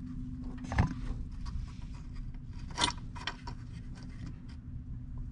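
Small metal parts clicking and rattling as a spring-loaded kickstand is pushed into its thrust-vector bracket by hand: a few separate sharp clicks, the loudest about three seconds in, over a steady low hum.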